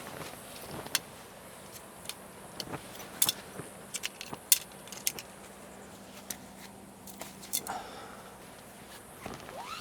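Support poles being pulled out of a pop-up tent frame and handled, making irregular light clicks, knocks and clinks.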